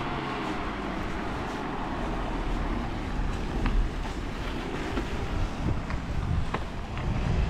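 A van drives past on a wet street, its engine fading away in the first second or two, over a steady rumble of wind on the microphone. A few faint taps follow in the second half.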